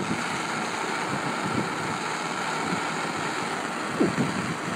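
Hand-held propane torch burning with a steady hiss. A few short low thumps come about four seconds in.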